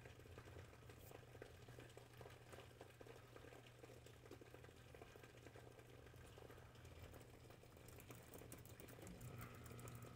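Near silence: faint room tone with a low steady hum, and a faint steady tone that comes in about nine seconds in.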